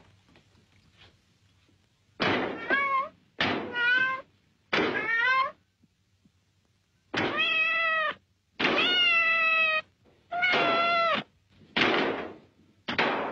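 A cat meowing over and over: about eight drawn-out meows, some bending up in pitch at the end.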